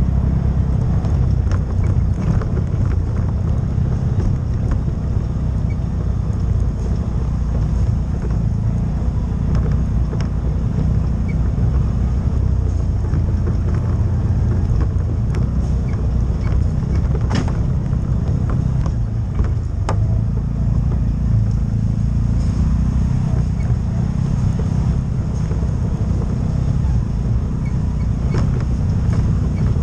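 CFMOTO UFORCE side-by-side running steadily along a rocky dirt trail, its engine and drivetrain giving an even low drone. A few short sharp knocks come through from the rough ground.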